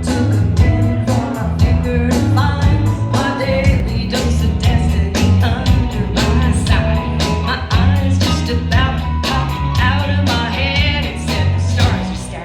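Upbeat rock-and-roll backing music with a steady drum beat, bass and guitar.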